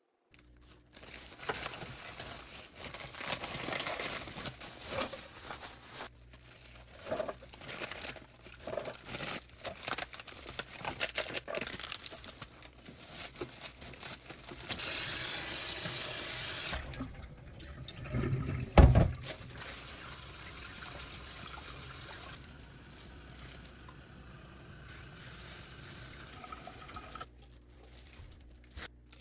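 Kitchen tap running and water splashing in a sink as something is washed, with a single loud knock about two-thirds of the way through.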